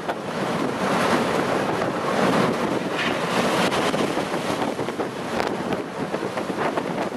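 Strong wind buffeting the microphone over the rush of a rough sea as a ship's bow drives through the waves, with a brief splash of spray about three seconds in.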